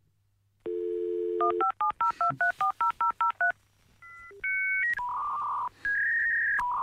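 Dial-up modem connecting: a steady telephone dial tone, then a fast run of about a dozen touch-tone digits being dialed. After a short pause the modem's handshake begins, a series of steady beeps and tones that change pitch every half second or so.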